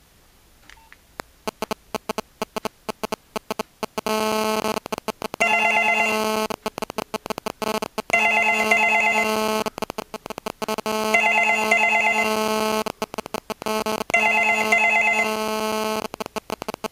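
Landline telephone ringing with the Australian double ring: two short rings in quick succession, repeating about every three seconds, four times from about five seconds in. Under the ringing is a steady buzz from a digital cell phone's radio signal getting into the audio circuit. The buzz sets in about a second in as rapid irregular clicks and settles into a continuous buzz about four seconds in.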